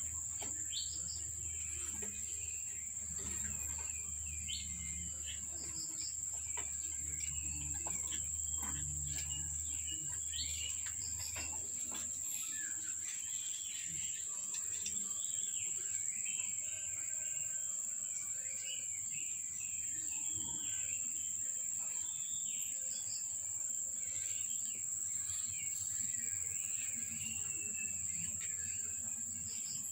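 Outdoor ambience: a steady high insect drone with small birds chirping on and off. A low hum underneath stops about twelve seconds in.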